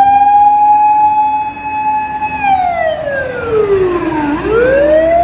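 Fire-engine siren wailing: a steady high tone that slides down in pitch about two and a half seconds in, bottoms out about four seconds in, and starts climbing back up near the end.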